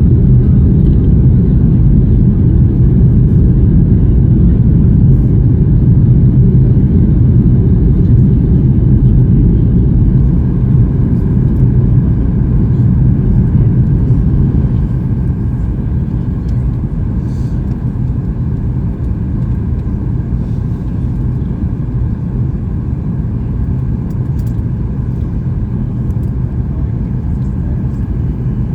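Loud, steady low rumble of a Boeing 737 MAX 8 heard from inside the cabin, easing to a lower level about fifteen seconds in.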